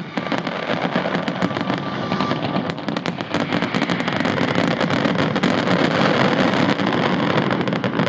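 Fireworks finale: a dense, unbroken barrage of aerial shell bursts, the reports coming so fast that they run together.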